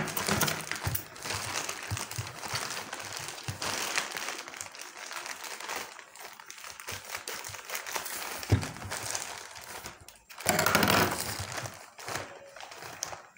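Packaging wrapper crinkling and crackling as it is handled and opened, continuous, with a louder stretch about ten seconds in.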